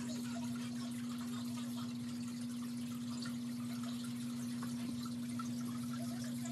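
A steady, unchanging low electrical hum, with faint trickling and dripping water over it.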